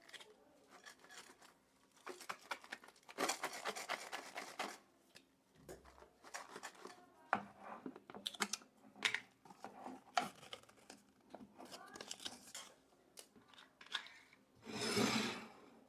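Potato chips and their packaging crackling, crinkling and crunching in irregular snaps and rustles as they are handled, with a louder, denser burst near the end.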